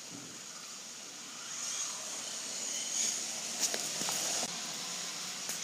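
Radio-controlled 1/16 Traxxas Slash VXL running on wet pavement: the high whine of its brushless motor with tyre hiss on the wet road, getting louder from about a second and a half in as it comes closer.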